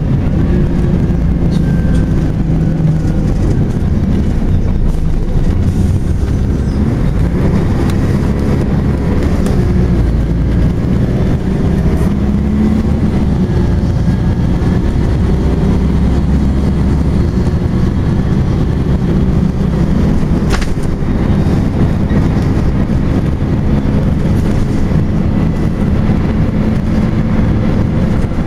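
Volvo B10BLE single-deck bus running with its engine cooling fan going loudly: a steady, heavy low drone with faint pitch glides over it. A single sharp click about two-thirds of the way through.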